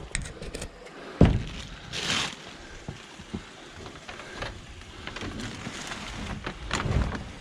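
Pigeons stirring in a coop: scattered scratches and clicks with short bursts of wing flapping, and a sharp knock about a second in.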